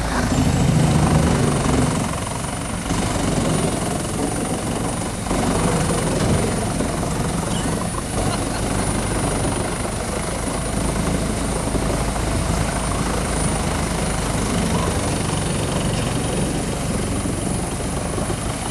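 Large wood chipper running steadily, its engine droning low under a continuous high whine, a little louder about a second in.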